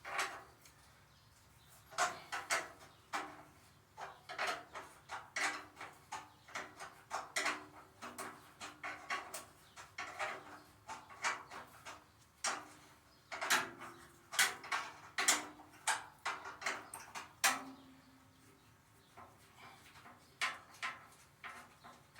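A wrench working the half-inch bolts off a chipper shredder's front cover: a long run of short metallic clicks and scrapes, two or three a second, that stops about three-quarters of the way through, with a few faint clicks after.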